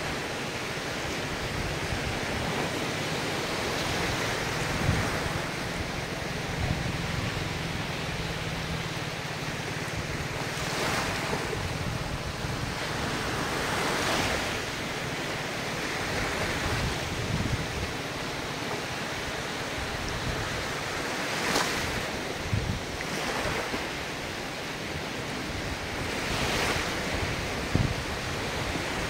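Ocean surf: waves washing in every few seconds over a steady rush of water, with wind buffeting the microphone.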